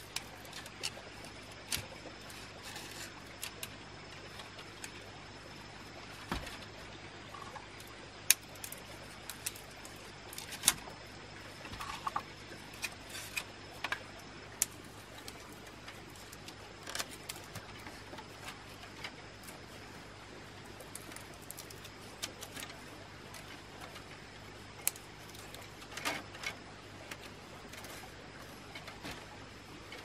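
Thin bamboo strips clicking and rattling irregularly as they are threaded by hand through a woven basket, over a steady low hum.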